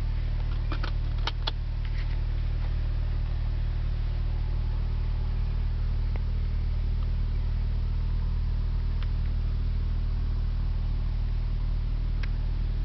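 2008 Porsche 911 Turbo's twin-turbo flat-six idling steadily, running fine. A few light clicks sound about a second in and once more near the end.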